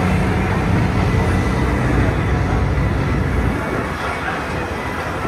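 Engine and road noise of a moving tour vehicle: a steady low rumble that eases off about three and a half seconds in.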